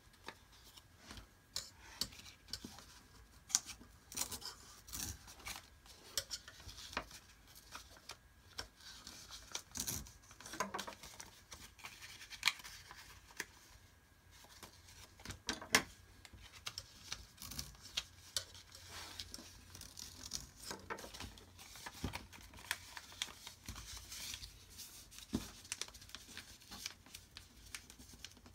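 Paper rustling and crinkling as a folded sheet is handled and creased into a paper airplane, with many small irregular crackles and taps.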